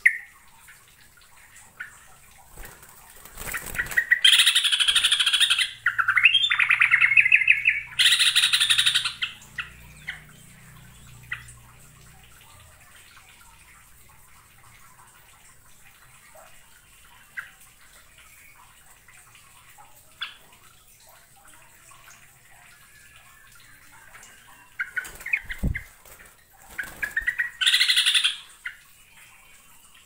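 Yellow-vented bulbul (trucukan) singing in loud bursts of bright, fast notes. The first burst comes about four seconds in and lasts some five seconds, with a rapid rolling trill in the middle. After that only a few faint notes sound until a second burst near the end.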